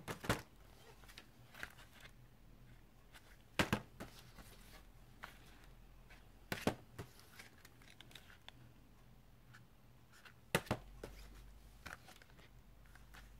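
Plastic-packaged rubber stamp sets being handled: a few short crinkles and knocks, about four clear ones spread over the stretch, with quiet between them.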